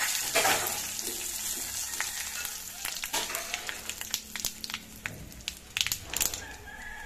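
Pancha phutana (Odia five-spice seeds), dry red chillies and bay leaves sizzling in hot oil in a kadai, with scattered crackles and pops as the seeds splutter: the tempering stage of a curry.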